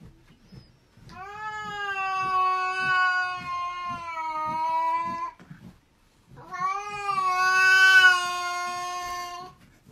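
A cat gives two long, drawn-out meowing yowls aimed at another cat, each rising in pitch at the start and then held. The first lasts about four seconds, and the second, louder one comes after a short pause and lasts about three.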